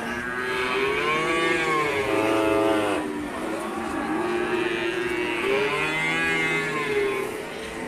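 Cattle mooing: two long calls that rise and fall in pitch, the first lasting about three seconds and the second starting about five seconds in.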